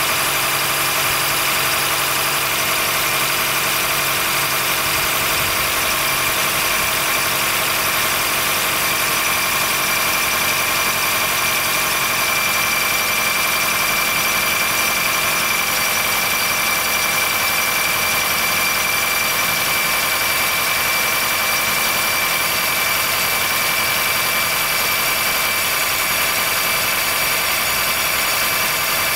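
Honda Fit Hybrid (GP5) running, with a steady high-pitched squeal over the drivetrain noise. It is the cold-weather squeal that stops once the car warms up, which the dealer judges harmless since no warnings appear.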